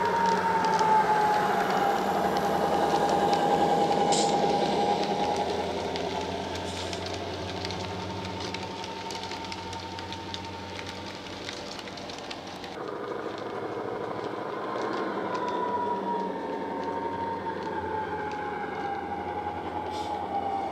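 Model Class 59 locomotive's DCC sound decoder playing its EMD two-stroke diesel engine running under power through the model's small speaker, with a whining tone that glides slowly down in pitch, twice, and scattered clicks from the wheels and track as the loco and its wagons roll past. The sound turns duller and quieter about 13 seconds in.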